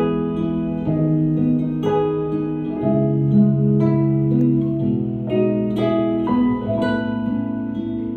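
Instrumental break in a slow song: a plucked string instrument playing gentle chords, a new chord struck about once a second and left to ring.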